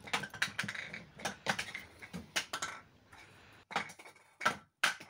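A comb pulled through freshly washed natural hair, making a run of short scratchy strokes at irregular intervals.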